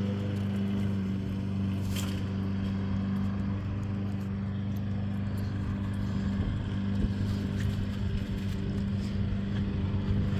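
Steady low machine hum, with a single sharp click about two seconds in.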